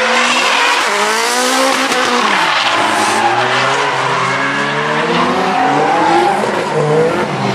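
Drift cars sliding through a corner: engines revving hard, their pitch rising and falling over and over, over a continuous hiss and squeal of tyres spinning and sliding sideways.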